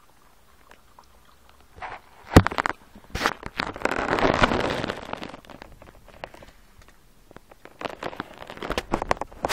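Two small dogs, a Yorkshire Terrier and a Kleinspitz x Jack Russell, scuffling in a play fight. Quiet at first, then a sharp knock about two seconds in and a burst of rustling scuffle, with more clicks and scuffles near the end.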